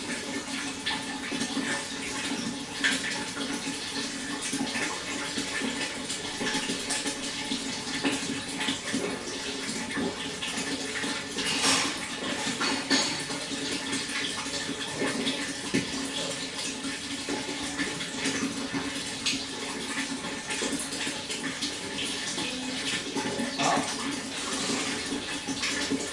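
Water flowing and splashing steadily, with many small irregular splashes.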